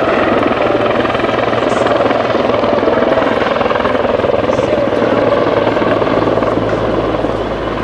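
Mil Mi-24 Hind attack helicopter in display flight: the fast beat of its main rotor over the noise of its twin Isotov TV3-117 turboshaft engines. The sound is loud and steady, easing slightly near the end.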